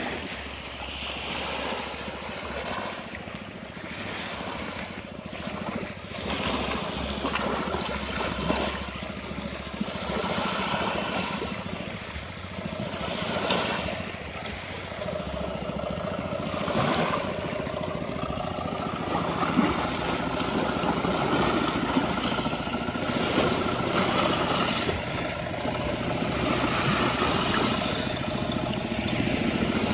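Waves and water with wind noise on the microphone; from about halfway through a steady motor hum joins in and grows slowly louder.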